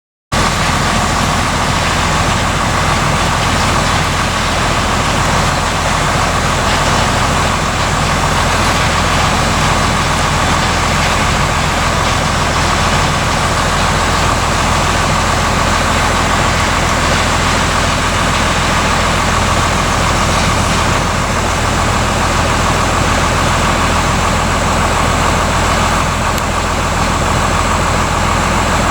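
Combine harvester running steadily while harvesting corn: a constant engine drone with a steady whine above it.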